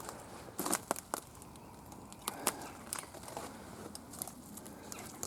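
Footsteps through dry woodland undergrowth: scattered crackles and snaps of leaves and twigs, unevenly spaced, with a few sharper cracks.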